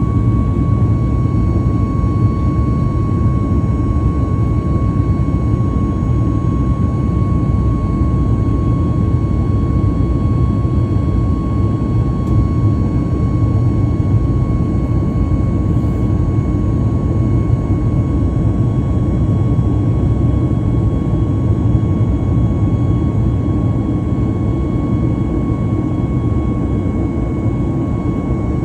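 Airbus A320neo's CFM LEAP turbofan engines heard from inside the cabin while climbing after takeoff: a steady, loud low rumble with a constant high whine above it.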